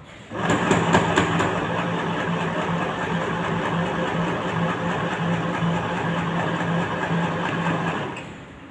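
Electric sewing machine running at a steady speed as it stitches a seam. It starts just after the beginning and winds down near the end.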